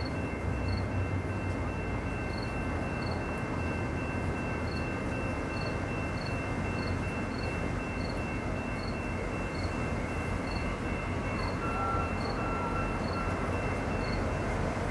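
Steady low rumble of a distant approaching VIA Rail EMD F40PH-2 diesel locomotive under outdoor background noise. A faint high chirp repeats about once a second throughout.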